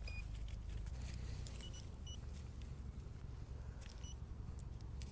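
Metal detector giving about half a dozen short, high beeps, scattered singly and in pairs, while it is swept in search of a target. A low steady rumble runs underneath.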